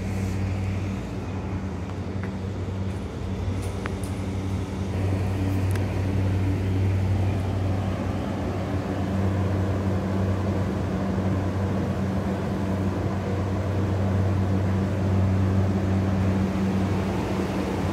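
JR East E235-series electric train pulling into the platform and slowing to a stop. Its running noise, a rush of wheels on rail over a steady low hum, grows louder partway through.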